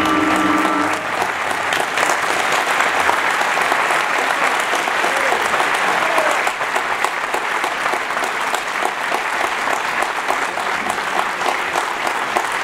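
A big band's held final chord of saxophones and brass ends about a second in, and steady audience applause fills the hall.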